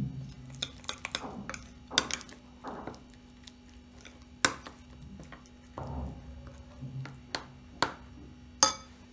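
Metal spoon stirring and scraping a thick mustard-and-yogurt paste in a bowl, with irregular sharp clinks of the spoon against the bowl's side, the loudest about two seconds in, in the middle and near the end.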